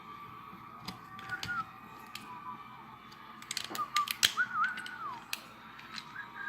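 Sharp clicks and clacks of small hard parts being handled and fitted on a shotgun, a few about a second in and a dense cluster in the second half. Short whistled notes slide up and down over them.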